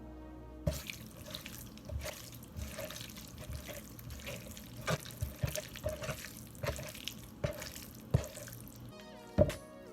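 Water running from a kitchen tap into a sink, with irregular knocks and clatter throughout.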